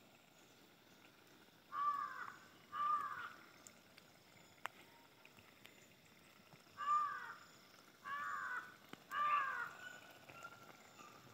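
A bird calling five times, each a short arching call: two about a second apart, then three more a few seconds later.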